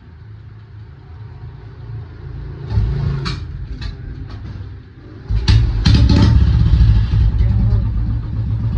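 Royal Enfield Bullet 350 single-cylinder engine being started, catching about five seconds in and running loudly with a heavy low thump. The owner complains of this as a problem noise, too loud and tractor-like.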